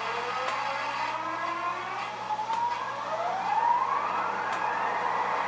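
Sound-equipped model diesel locomotive's electronic engine sound revving up, several stacked tones gliding upward in pitch and levelling off near the end, over a steady low hum.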